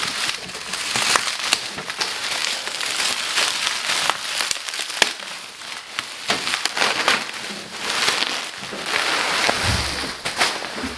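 Bubble wrap being pulled off and handled: continuous crinkling and crackling with many sharp clicks, and a low thump near the end.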